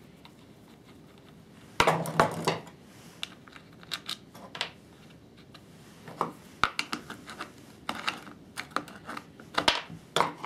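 Clicks, knocks and scrapes of hard plastic and metal parts and a screwdriver being handled while the sharpening-stone lever assembly is worked loose from an electric chainsaw's housing. A loud clatter comes about two seconds in, then scattered smaller clicks and taps.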